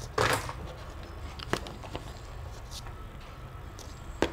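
Handling noise as a small FM receiver circuit board is moved and set against a cardboard box: a brief rustle, then two light clicks, over a low steady hum.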